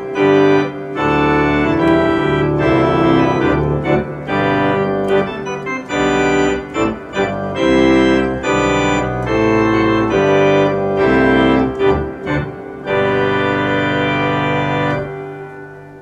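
Viscount Sonus 60 Physis digital organ, a physically modelled instrument, playing a passage of chords on the full swell with its chorus reeds drawn. The passage ends on a long held chord that is released and dies away near the end.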